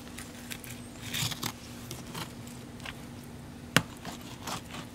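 Fillet knife slicing along a speckled trout on a plastic cooler lid: a string of short cutting and scraping strokes, with one sharp knock about four seconds in.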